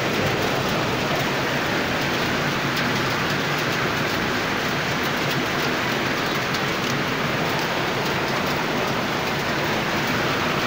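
Rain falling steadily, an even hiss of drops striking the ground and surfaces.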